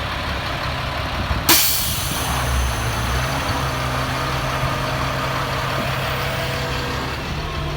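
Caterpillar 3126 diesel engine of a Freightliner FL80 truck idling steadily, with a sudden sharp burst and a short fading hiss about one and a half seconds in.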